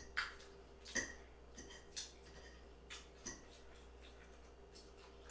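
Metal fork clinking and scraping against a plate of loaded fries while eating, with a few sharp clinks in the first three and a half seconds, then only faint small clicks.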